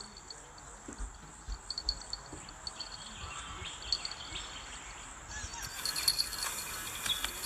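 Outdoor chorus of insects chirring steadily with bird chirps. From about five seconds in, a rattling, ticking noise builds and grows louder.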